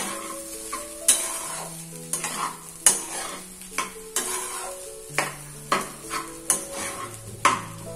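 Quinoa fried rice being stirred in a hot pan, a utensil scraping the pan in about a dozen irregular strokes over a light sizzle of frying.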